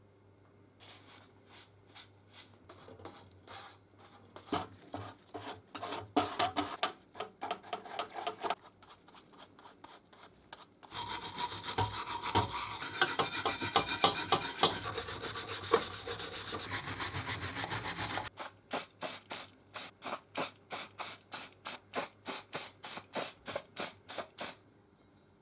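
Hand-worked abrasive strokes on a metal part, rubbing back and forth. The strokes come irregularly at first, become a fast, almost continuous run for several seconds, then settle into even strokes about two a second before stopping shortly before the end.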